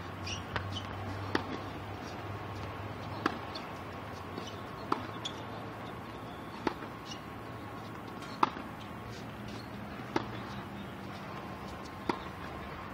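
Tennis balls struck by a racket and bouncing on a hard court during a backhand rally: sharp pops about every one and a half to two seconds.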